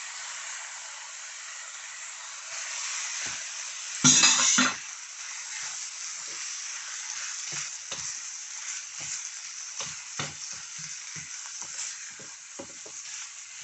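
Chicken mince and mixed peppers sizzling in a non-stick frying pan, with one louder burst about four seconds in. From about six seconds on, a silicone spatula stirs the pan with repeated light knocks and scrapes.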